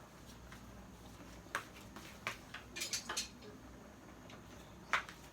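A few scattered light clicks and knocks of kitchenware being handled, the sharpest about five seconds in.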